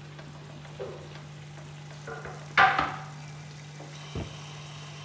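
Potato pieces tipped into a pot of mutton frying in oil and masala: a faint steady sizzle, then a sudden loud burst of sizzling about two and a half seconds in that quickly dies down, with a few light knocks.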